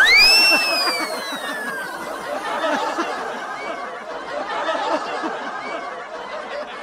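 Canned audience laughter, with a whistle-like sound effect near the start that rises sharply and then slowly falls over about two seconds.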